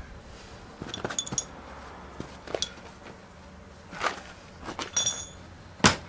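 Metal tools clinking against the motorcycle's rear axle parts: several short, ringing clinks, then a heavy knock near the end as a boot kicks the rear tyre to push the wheel forward.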